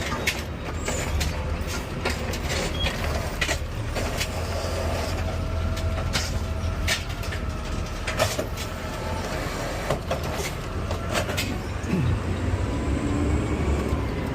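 Garbage truck running, its engine a steady low rumble under repeated clanks and knocks of metal.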